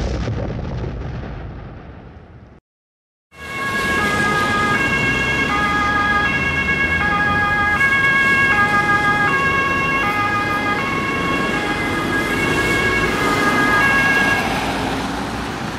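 A boom-like hit fades out over about two seconds, and after a brief silence the sound of road traffic begins. Over the engine rumble, a German two-tone emergency-vehicle siren (Martinshorn) sounds, switching back and forth between two pitches.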